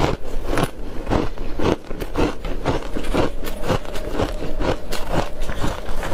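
Close-up chewing of a mouthful of freezer frost: soft, powdery ice crunching between the teeth in a steady rhythm of about two crunches a second.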